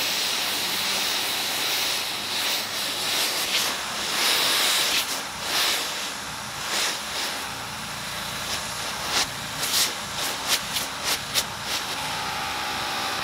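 Forvac Cobalt vacuum cleaner running with a steady hiss of suction as its nozzle is worked over a fabric cat bed, the sound surging briefly again and again, more often in the second half.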